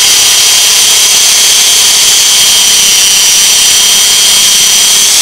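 Drill-driver running steadily in reverse, the drill end of a screw-extractor bit boring a hole into a broken bolt in a washing machine gearbox shaft. A loud, even whine over grinding metal, with no change in speed.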